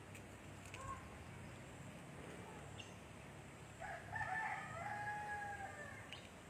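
A rooster crowing once, about four seconds in: a few short broken notes, then one long held note that falls slightly, lasting about two seconds in all.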